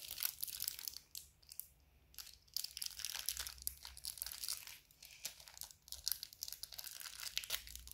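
A small candy wrapper crinkling and tearing as fingers pick it open, in irregular crackles with a short lull about two seconds in.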